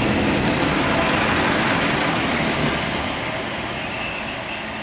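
A train running on the rails, a steady rushing rumble that slowly gets quieter.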